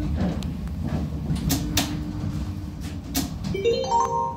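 Inside an HCP 123N tram, a steady low rumble with a few sharp knocks as the tram gets under way. Near the end a short electronic chime of several notes stepping upward sounds, the signal that comes before the automated next-stop announcement.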